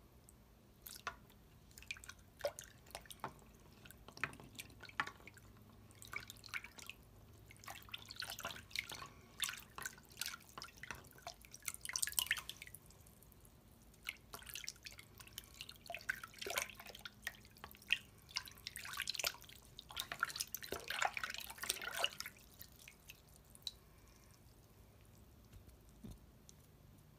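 Water dripping and splashing in a basin as a wet watch and hand are dipped and lifted, in irregular drips and small splashes with two busier spells, dying away a few seconds before the end.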